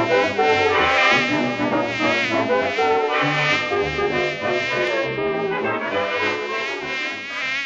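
Cartoon fly buzzing, its pitch wavering, over brass intro music with a stepping bass line.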